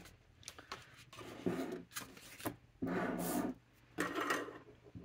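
Hands sliding and setting down items on a desktop (a paper swatch tag and a glass dip pen), making soft rubbing and scraping sounds in three or four short bouts.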